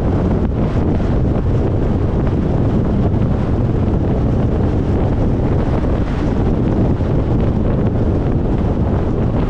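Steady wind and road noise from a car driving at highway speed, a heavy low rumble with wind rushing over the microphone.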